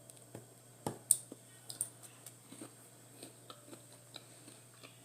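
Eating sounds: scattered soft clicks and smacks of chewing and handling food, the sharpest about a second in.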